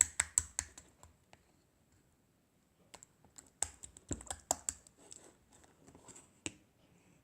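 A run of quick, sharp clicks and taps in two spells: a fast burst at the start, a pause of about two seconds, then another irregular spell ending with a louder tap near the end.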